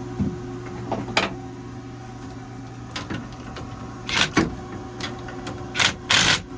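Metal tool clanks and clicks of a socket wrench being worked on a bolt, a few scattered knocks growing into a quick run of them near the end, over a steady low hum.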